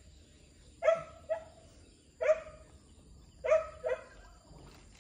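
A dog barking in short single and double barks, five in all.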